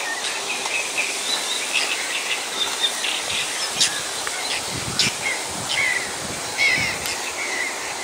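Small birds chirping over and over in short, high calls, over a steady outdoor hiss. From about three seconds in, soft low rustling and footsteps of someone walking along a grassy path join in.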